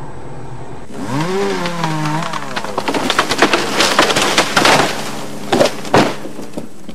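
A chainsaw revs up and runs. Then a felled tree cracks and splinters as it topples and lands with two heavy thuds near the end.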